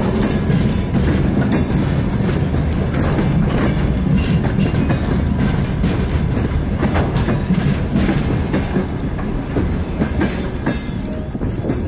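TEM2U diesel shunting locomotive running along the track: its diesel engine drones steadily while the wheels click over the rail joints.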